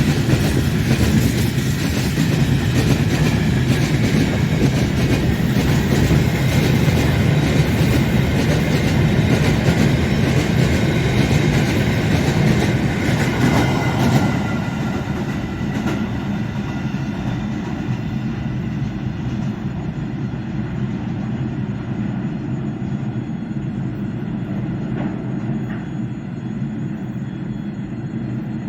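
Freight train wagons rolling past, wheels clicking over the rail joints with a faint high squeal from the wheels on the curve. About halfway through the sound turns duller and a little quieter while the low rumble goes on.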